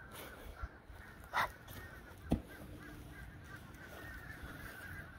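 Birds calling in the background, a steady chatter of chirps with one louder caw about a second and a half in. A short knock sounds a little later.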